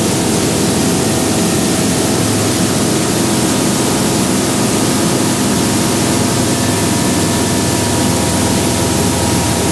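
Steady cabin noise of a Remos GX light sport aircraft climbing at full throttle: the engine and propeller running with a hiss of rushing air, unchanging.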